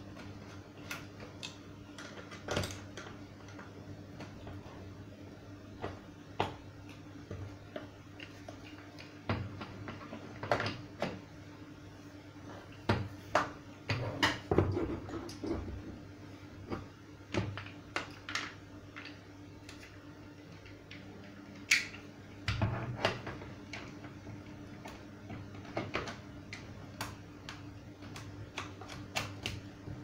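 Irregular plastic clicks, taps and knocks from the grey plastic motor head of a Morgan 3-in-1 vacuum cleaner as it is handled and turned over by hand. There are clusters of louder knocks near the middle and about three-quarters of the way through, over a steady low hum.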